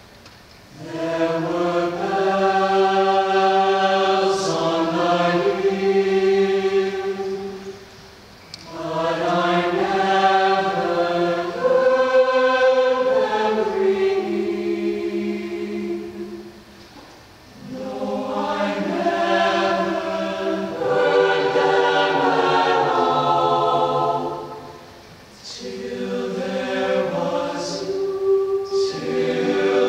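Mixed-voice high school concert choir singing sustained chords in long phrases, the sound dropping away briefly between phrases about every eight seconds, with a few crisp 's' consonants.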